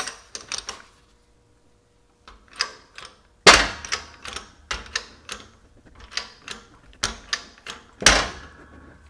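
Shop press pressing a new steel sleeve onto a GM 4T40E/4T45E transaxle stub shaft through a socket: a run of light metallic clicks and knocks, a few a second, with two louder knocks about three and a half seconds in and near the end.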